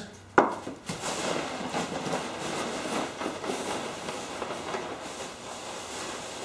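A sharp knock about half a second in, then steady rustling and clattering of foam packing peanuts as hands dig through a cardboard shipping box.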